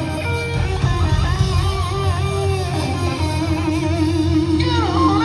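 Live rock band playing, with an electric guitar lead of bent, wavering notes over bass and drums. Near the end a guitar note slides downward.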